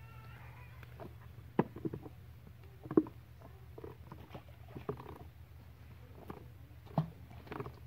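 Fish being picked out of a cast net by hand on concrete: irregular rustling of the mesh and soft taps of fish landing on the ground, with three sharper knocks at about one and a half, three and seven seconds in.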